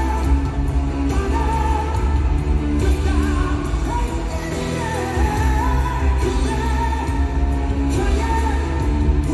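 Live rock band playing, with a male lead vocal sung by the drummer from behind his kit over heavy drums and bass.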